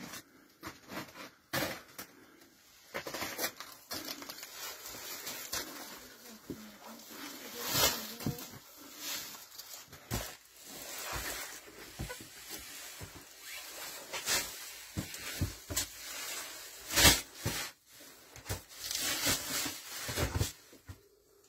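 Footsteps crunching and scraping on snow and rock, with rustling of clothing and a woven plastic feed sack being carried and set down, in irregular knocks and scrapes; one sharp knock about seventeen seconds in is the loudest.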